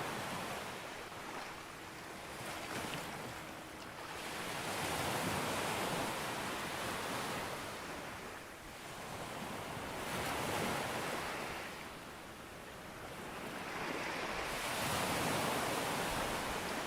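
Sea waves breaking and washing up a beach, rising and falling in slow surges every few seconds.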